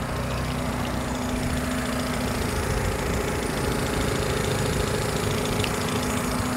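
2011 Kia Morning engine idling steadily, heard close from the open engine bay; it runs very smoothly and quietly.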